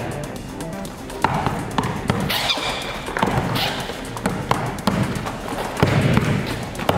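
Basketball being dribbled hard on an indoor court floor during one-on-one play: separate bouncing thuds, roughly one or two a second and unevenly spaced, echoing in the hall.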